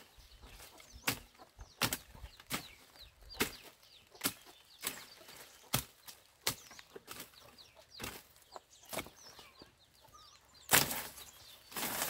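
A hand tool chopping through grass and brush as weeds are cleared: short, sharp strikes about one every three-quarters of a second, the hardest one near the end, with leaves rustling between them.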